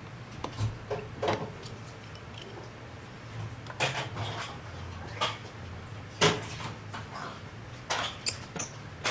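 Scattered light clicks and taps from handling an iPhone XR and small repair tools on a bench during a screen replacement, the sharpest tap about six seconds in, over a steady low hum.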